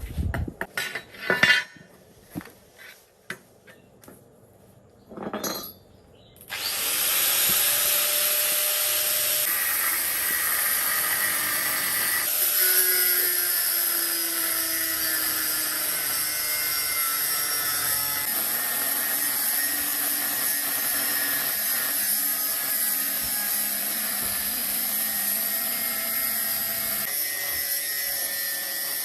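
A few sharp knocks and clatters, then about six and a half seconds in an electric power tool starts and runs steadily under load, working metal with a loud high hiss and a whine that shifts in pitch.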